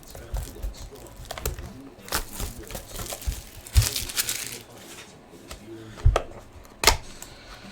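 Trading card pack wrappers crinkling and tearing as packs are opened, with cards being handled and a few sharp knocks, the loudest about four, six and seven seconds in.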